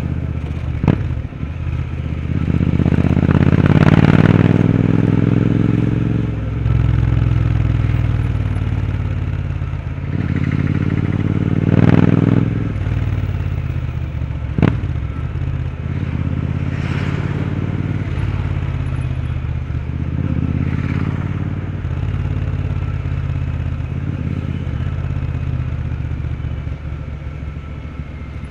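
Royal Enfield Interceptor 650's parallel-twin engine, through a Powerage aftermarket exhaust, running under way. The revs climb and fall several times, most strongly about 4 and 12 seconds in, with two sharp cracks, at about 1 second and near the middle.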